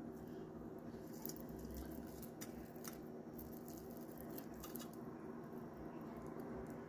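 Scattered light crackles and clicks of bare hands handling food on plates, picking up crisp fried fish and greens, over a steady low hum.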